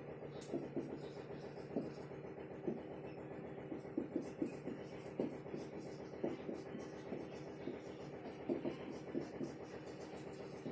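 Writing on a board: irregular light taps and strokes, about one or two a second, over a steady low hum.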